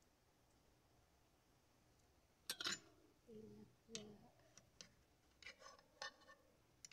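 A fork clicking and clinking against a plate several times, the loudest cluster about two and a half seconds in, with two short voice sounds in between. Otherwise faint.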